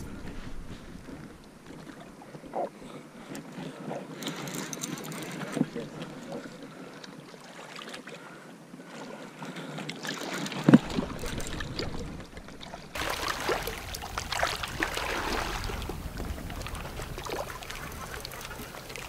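Wind on the microphone and water noise around a boat, with one sharp knock about eleven seconds in; the noise grows brighter and a little louder about two seconds later.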